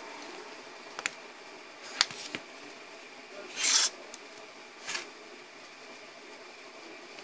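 Automatic-door controller circuit board being handled and turned over on cardboard: a few sharp knocks, then a short loud scraping rub about three and a half seconds in and a smaller one near five seconds.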